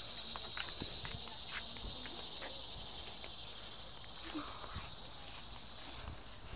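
A steady, high-pitched chorus of insects from the surrounding trees and grass, swelling a little about a second in and easing slightly toward the end.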